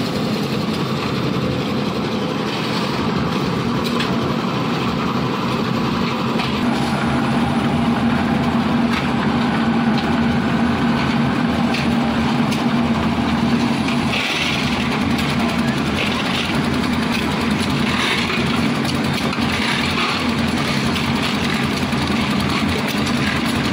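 Concrete mixer machine's engine running steadily, a constant low drone.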